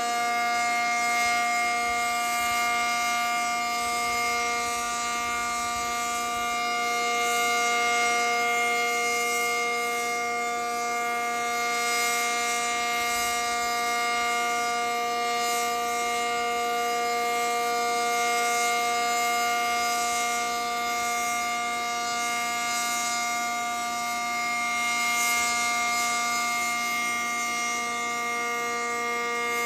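ACA Cyclone 125 outdoor tornado warning siren sounding the steady Alert signal: a held chord of unwavering pitch that swells and fades slightly in loudness.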